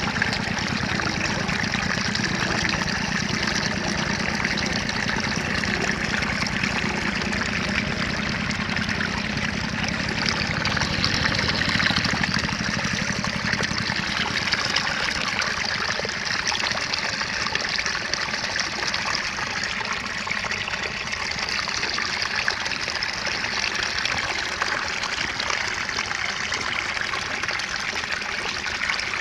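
Water running steadily through a channel cut in a mud bank, a continuous trickling, splashing flow.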